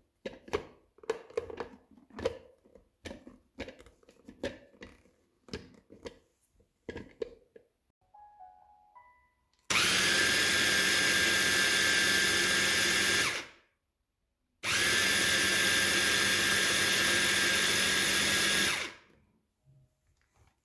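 A food processor with a top-mounted motor being assembled: scattered clicks and knocks as the lid and motor unit are fitted on. Then the motor runs twice, about four seconds each with a short stop between, a steady whirring with a high whine, puréeing chickpeas for hummus.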